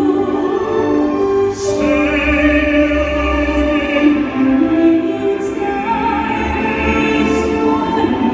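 Male and female singers performing a slow musical-theatre duet in operatic style through microphones, with long held notes; a higher voice line comes in about two seconds in.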